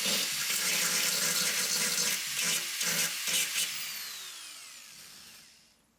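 A power tool works on rusted car body metal with a harsh hiss that surges in pulses. About four seconds in, it is switched off and spins down with a falling whine, fading out.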